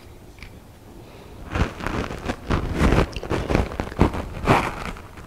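Crunching and chewing close to the microphone, in bursts about twice a second starting about a second and a half in: the priest eating the Communion host.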